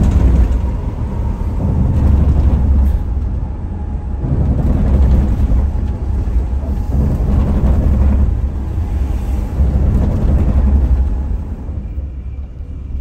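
Bus on the move: a loud, low engine and road rumble that swells and eases several times, getting quieter near the end.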